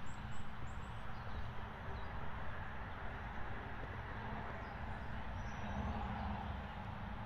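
Steady outdoor background noise with a low rumble and a faint hum, with no distinct sound events.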